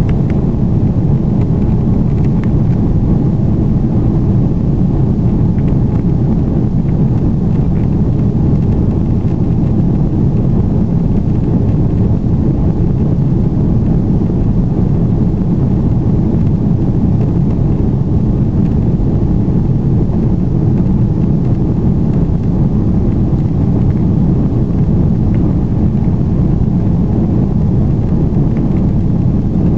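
Steady cabin noise inside an Airbus A330-200 in flight: jet engine and airflow noise heard as an even low rumble that does not change.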